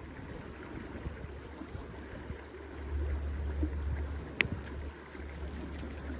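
Mountain river running steadily, with wind rumbling on the microphone that swells for about a second midway, and a single sharp click about two-thirds of the way in.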